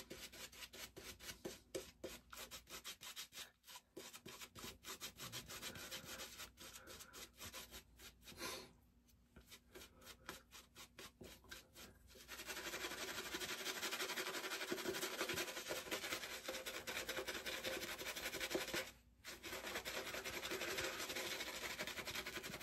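Shaving brush working soap lather, faint bristle rubbing and swishing: quick separate strokes at first, then a steady continuous scrubbing from about halfway through, with two short pauses.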